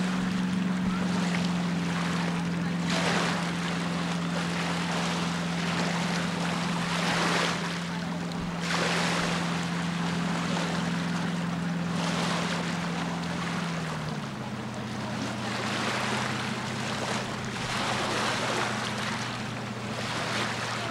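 Rushing wind and lake water at the shore, swelling every few seconds, over a steady low engine drone that drops in pitch about fourteen seconds in.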